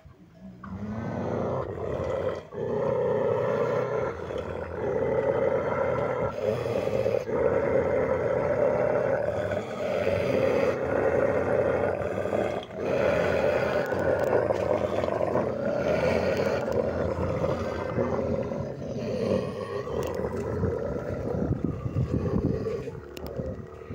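Maremma sheepdogs growling at each other, one long continuous growl with a few brief breaks.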